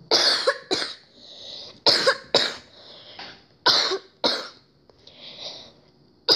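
A person coughing in a fit: three pairs of harsh coughs about two seconds apart, with breaths drawn in between, and another cough starting at the very end.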